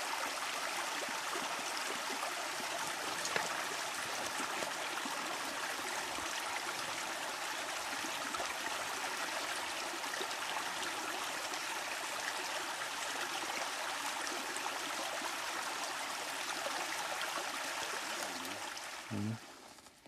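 Stream water running steadily. It fades out near the end, with a brief low sound just before it stops.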